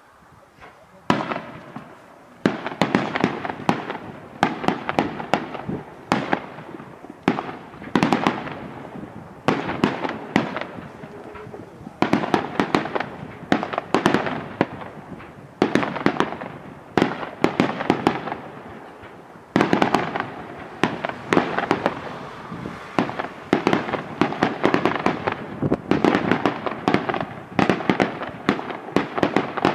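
Daytime aerial fireworks bursting in rapid, dense volleys of sharp bangs and crackling reports, many a second, starting about a second in and running on without a break.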